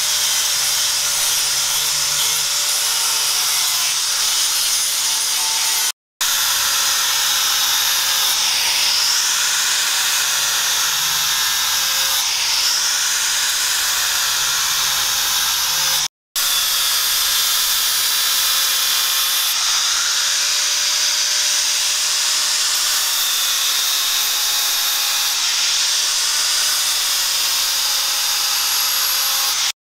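Handheld electric angle grinder running with an abrasive disc against a steel Bowie knife blade: a steady grinding rush over a motor whine that wavers in pitch as the disc works the steel. The sound drops out to brief silence twice.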